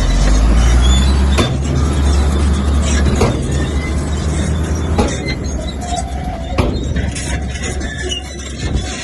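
Komatsu bulldozer working: deep, steady engine running, with sharp metallic knocks recurring about every second and a half to two seconds.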